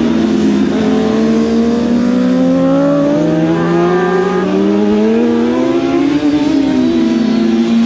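Several 1000cc superbike engines racing together, their pitch dipping and then rising as the bikes slow for corners and accelerate out of them.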